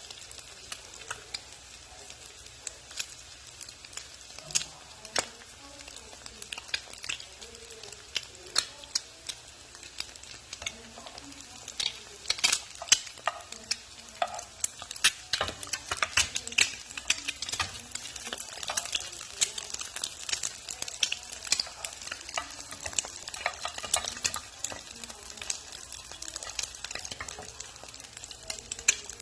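Eggs frying in hot oil, crackling and spitting with scattered sharp pops over a steady sizzle. The pops come thicker and louder about twelve seconds in.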